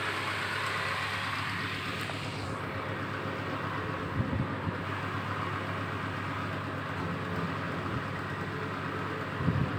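Steady background hum and hiss, like distant traffic or machinery, with a few soft low thumps about four seconds in and again near the end.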